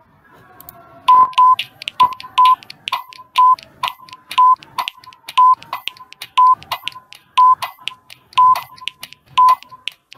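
Quiz countdown-timer sound effect: sharp ticking with a pair of short beeps once a second, counting down the seconds. It starts about a second in.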